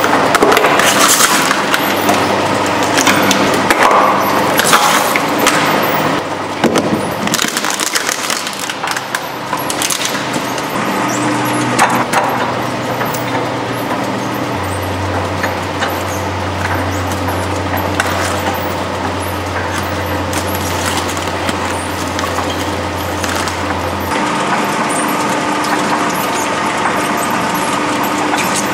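Twin-shaft shredder's steel cutters crunching and crackling through a tin can for the first several seconds. Then the motor hums steadily, with a few sharp cracks, as a whole watermelon is fed onto the cutters.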